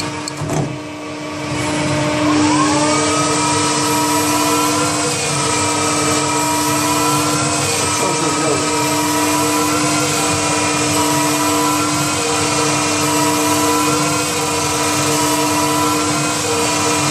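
CNC lathe running: its spindle drive whine dips about half a second in, then rises in pitch around two seconds in and settles to a steady whine over a constant hum.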